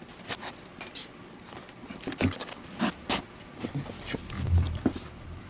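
Leather lace being pulled through the lacing holes at the heel of a Zett infielder's baseball glove with a lacing needle: a series of short, irregular scrapes and squeaks of leather drawn over leather. About two-thirds of the way through comes a soft low thump as the glove is handled.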